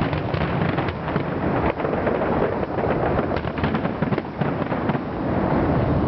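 Aerial fireworks shells bursting in quick succession: many sharp bangs and crackles over a continuous low rumble.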